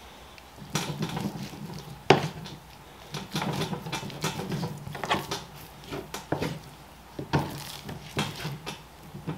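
Boning knife slicing and scraping through raw beef against a plastic cutting board as fat is trimmed off, in short irregular strokes, with one sharp knock of the knife on the board about two seconds in.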